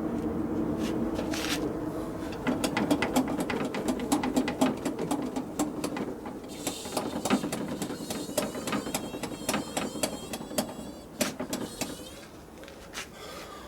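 Hand priming pump on a KAMAZ truck's diesel fuel system being worked to bleed air out of the fuel lines before cranking: a long run of quick, even clicking strokes.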